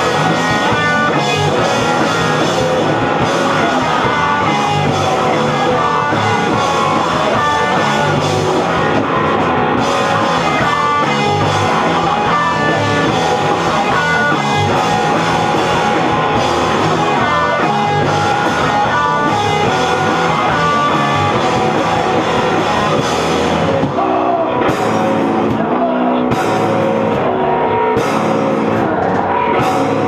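Live rock band playing loud, distorted electric guitar over a drum kit. In the last few seconds the playing turns sparser and choppy.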